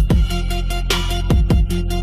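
Electronic dance music with a heavy beat: deep kick drums that drop in pitch, fast hi-hat ticks and short repeated synth notes.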